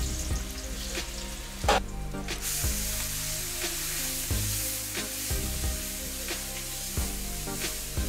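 Finely minced carrot, zucchini, eggplant and onion sizzling in hot sunflower oil in a stainless steel pot, while a metal spoon stirs them, scraping and knocking against the pot about once a second.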